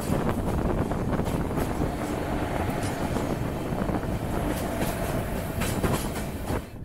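Passenger train running on the rails: a loud, steady rumble of wheels on track with scattered clicks and clatter. The sound drops off suddenly near the end.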